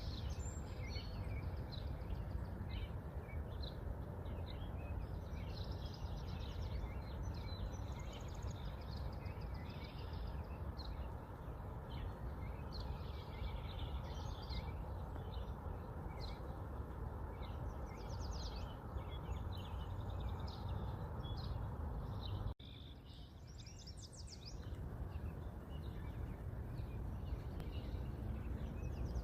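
Many small birds chirping and twittering in short scattered calls, over a steady low background rumble. About two-thirds of the way through the sound cuts abruptly and comes back briefly quieter.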